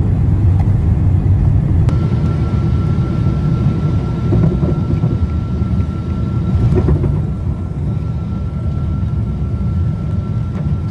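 Loud, steady low rumble of engine and airflow heard from inside an airliner's cabin in flight, with one of its jet engines failed and stripped of its cowling. A thin steady high tone joins about two seconds in.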